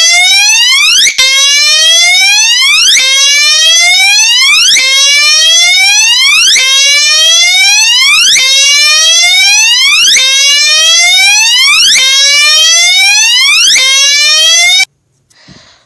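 Gentex GECB24PWB Commander 3 electronic horn sounding a very loud repeating rising sweep tone: each sweep climbs in pitch for nearly two seconds, then snaps back and starts again, about eight times, before it cuts off suddenly near the end.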